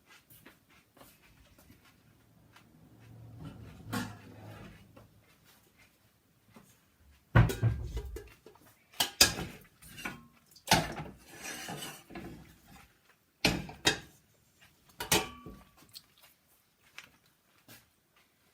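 Kitchen handling sounds: a few irregular knocks and clatters of pans, dishes and utensils being picked up and set down, with a faint low hum early on.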